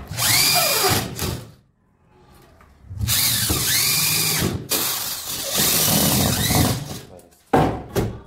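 Cordless drill driver sinking screws into a plywood drawer front in three short runs, its motor whine rising as it spins up and falling away each time, with a pause after the first run. A few sharp knocks near the end.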